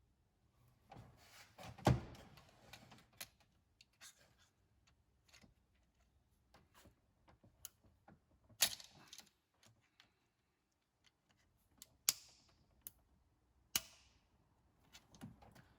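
Hand tools and engine parts being handled: scattered clicks and knocks, with a few louder clacks and short rattling scrapes, as pliers and plastic wiring-loom connectors are worked.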